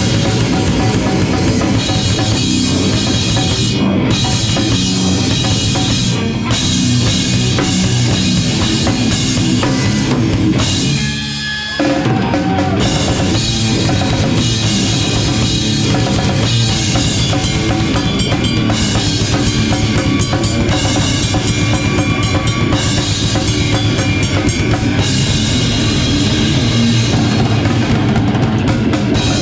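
Live loud rock band playing, drum kit to the fore with pounding bass drum and snare. Near the middle the band breaks off for about a second, leaving a low held note, then crashes back in.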